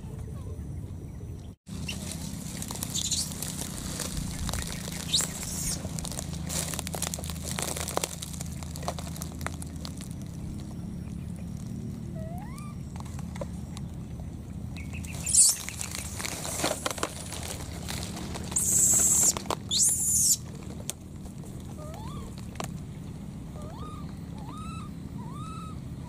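Outdoor ambience with a steady low hum and scattered clicks and rustles, a few short, loud, high calls in the middle, and in the last few seconds a run of short rising-then-falling animal calls, about one a second.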